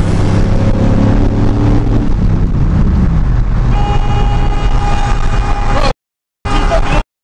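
Engine and road noise inside a moving vehicle at highway speed, then, from just under four seconds in, a car horn held in one steady blast for about two seconds. The sound cuts out abruptly twice near the end.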